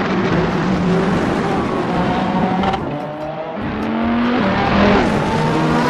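Race car engine sound revving hard, its pitch climbing and dropping back several times as if shifting up through the gears.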